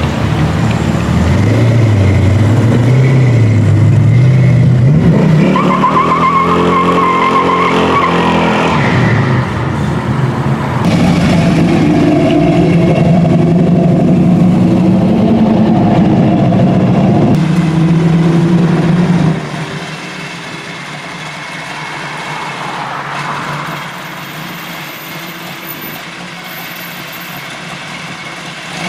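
Classic muscle cars pulling away one after another with engines revving hard. About six seconds in, tires squeal over a climbing engine note. About twenty seconds in, the sound drops to a quieter, steadier engine rumble.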